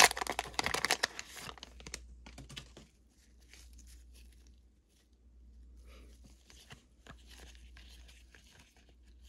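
A 2023 Panini Prizm football value pack's wrapper crinkling and tearing open, loud for about the first two seconds. Then fainter rustling and sliding as the stack of cards is pulled out and fanned.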